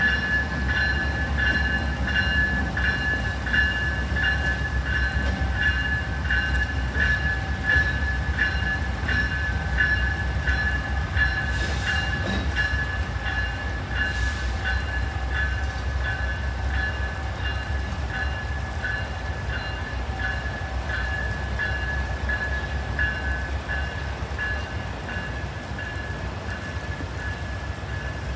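A locomotive bell ringing steadily, about two strokes a second, over the low rumble of a slow-moving diesel-hauled passenger train as it pulls away, the sound fading a little toward the end.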